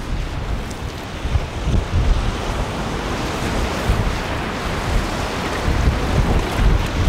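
Wind buffeting the microphone in irregular gusts over the rushing of water and waves churned up by a center-console boat running at speed.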